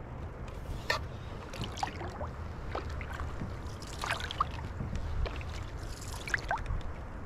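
Canoe paddling: a laminated wooden paddle dipping and pulling through river water, with small splashes and drips off the blade, over a steady low rumble.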